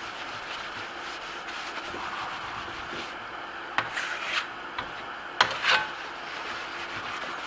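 A rag rubbing wax over a Venetian plaster board, a steady soft rubbing, with a few short sharper scrapes a little past the middle.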